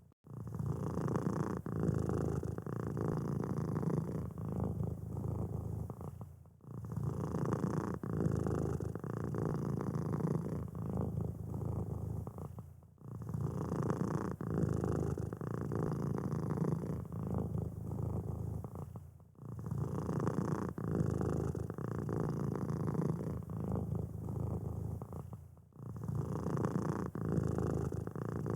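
Domestic cat purring steadily, a low, rough, pulsing purr that breaks off briefly about every six and a half seconds and starts again.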